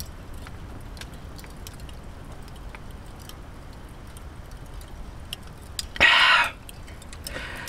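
A man drinking beer: quiet swallowing under faint scattered ticks, then a loud, sharp breathy exhale of satisfaction about six seconds in, and a softer breath near the end.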